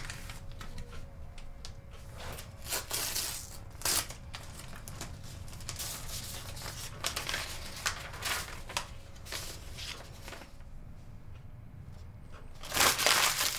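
Paper rustling and tearing as an envelope is opened and the letter handled, in irregular short bursts, with a louder stretch of rustling near the end.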